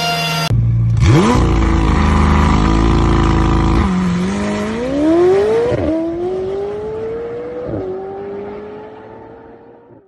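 McLaren supercar's twin-turbo V8 held at steady revs for a few seconds, then launching and pulling away hard. Its pitch climbs and drops sharply at two upshifts, and the sound fades into the distance.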